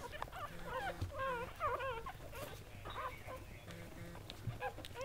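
Newborn Golden Doodle puppies squeaking and whimpering as they jostle to nurse: many short, wavering high-pitched squeaks, some overlapping.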